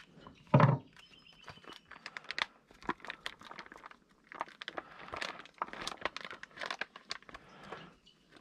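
Plastic packaging being crinkled and torn open by hand, with one loud thump about half a second in.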